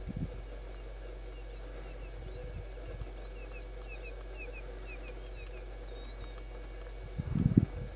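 A quick run of short, high, falling chirps from a small bird, about five a second, over a steady low hum. A dull low thump comes at the start, and a louder burst of low knocking rumble comes near the end.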